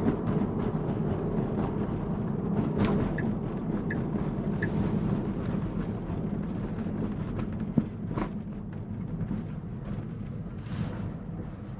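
Road and tyre noise inside the cabin of a Tesla Model 3, an electric car, while driving: a steady low rumble with no engine note, easing slightly toward the end. A single sharp click comes about eight seconds in.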